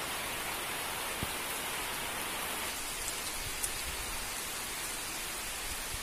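Heavy rain falling steadily on a wet village road and the foliage around it, a dense, even hiss.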